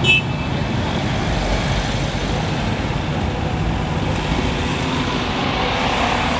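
Cars driving slowly past one after another, their engines and exhausts running under a steady road noise. There is a short high chirp right at the start, and near the end a car's engine climbs in pitch as it accelerates close by.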